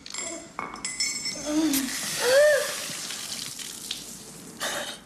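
A soda can being opened, clinking, then bursting open with a loud hiss about two seconds in as the fizzing soda sprays out, the hiss fading over the next couple of seconds. A short shocked vocal cry rises and falls during the spray.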